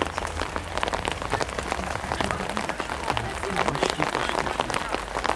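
Rain pattering steadily on a surface close to the microphone: a dense, even crackle of drops over a low rumble.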